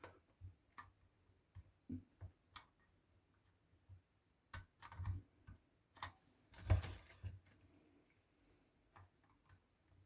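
Scattered light clicks and taps from handling an electric kettle's parts during repair, with a louder knock about two-thirds of the way in.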